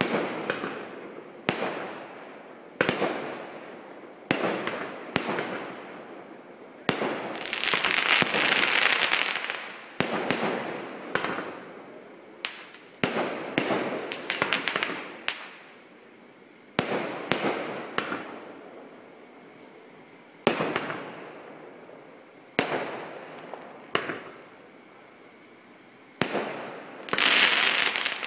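Aerial fireworks bursting one after another, each sharp bang trailing off in a long echo. Two longer spells of dense, continuous noise come from the display, one about a quarter of the way in and one near the end.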